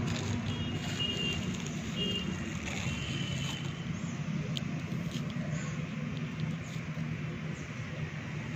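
Steady low mechanical hum, with a few short high chirps in the first three seconds.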